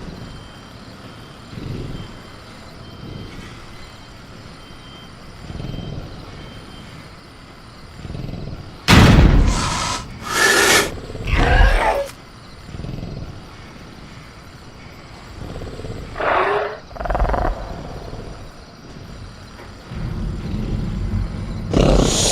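Sound-effect velociraptor roaring and shrieking in a caged-raptor ambience. A sudden loud burst about nine seconds in is followed by two shrieks. Two shorter calls come a few seconds later. Faint crickets and soft low thuds sit underneath.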